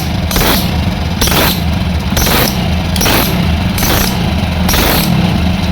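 Hero Passion Pro motorcycle's single-cylinder four-stroke engine idling, with a sharp phat-phat puff about every three-quarters of a second over the steady engine note. The puffing is gas escaping past a burnt head gasket that is leaking from the underside, which the mechanic says has left the engine weak on compression.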